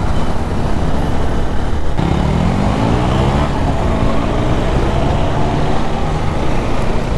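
Honda Hornet 160R motorcycle riding in city traffic, with heavy wind noise over the microphone. About two seconds in, its single-cylinder engine rises in pitch as the bike accelerates.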